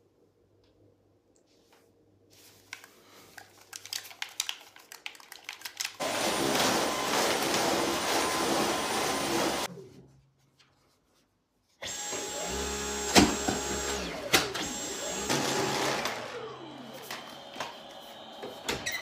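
Cordless stick vacuum cleaner running at full power in two stretches, cutting off suddenly for about two seconds between them, with scattered clicks and knocks; it runs more quietly near the end.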